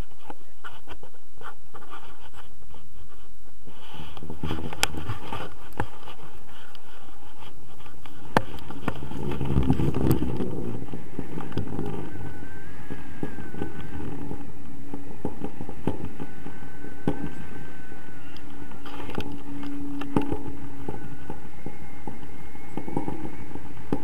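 Wind rushing over the camera microphone during a tandem paraglider takeoff and climb: a steady rush with gusty low rumble, heaviest about ten seconds in, and a few clicks and knocks.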